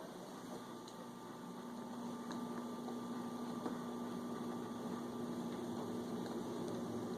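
A steady electrical hum with a few level tones, slowly getting a little louder.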